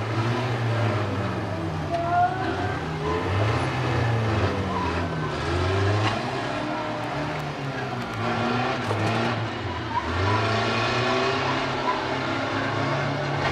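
Engines of several banger-racing vans running and revving together, their pitch rising and falling in overlapping swells.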